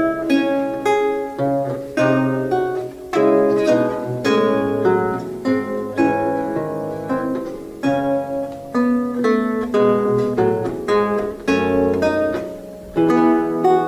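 Solo lute played by hand: a flowing line of plucked notes and chords, each note ringing and fading before the next.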